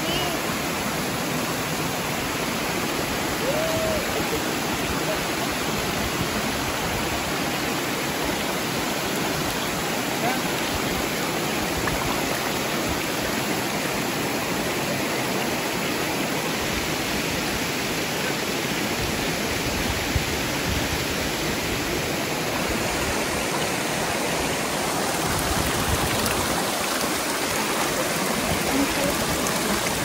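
Steady rush of a waterfall and the stream below it, water pouring and splashing over rocks.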